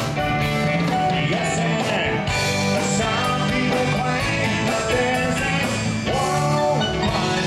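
Live band playing upbeat rock-and-roll, with electric guitar, drums and keyboard, amplified through a PA.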